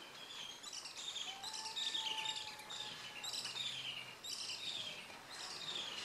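A bird singing: short phrases of chirps that fall in pitch, repeated about once a second. A faint held whistle-like note sounds under it for a couple of seconds in the middle.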